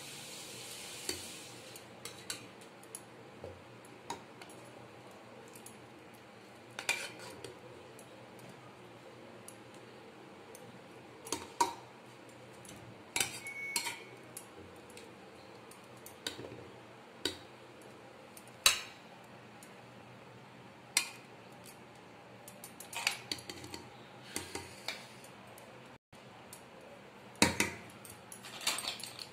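Steel spatula knocking and scraping against the inside of an aluminium pressure cooker while steamed dumplings are lifted out, in scattered, irregular clinks, several close together near the end.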